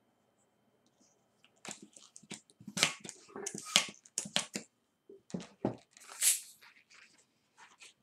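Hand balloon pump inflating a long blue modelling balloon in a run of irregular pumping strokes, followed by a short hiss about six seconds in and small rubber squeaks and clicks as the inflated balloon is handled for tying.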